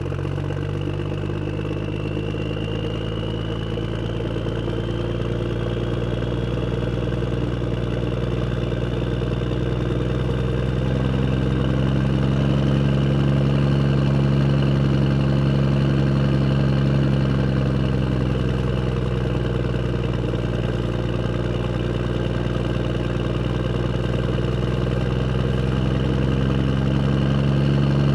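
Vehicle engine running steadily under way, its pitch rising a little in the middle and easing back, growing gradually louder.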